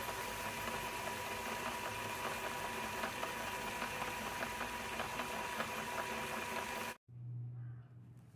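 Heavy meat grinder running steadily as it grinds a crunchy snack, a constant whine over its hum. It cuts off abruptly about seven seconds in, and a brief low hum follows.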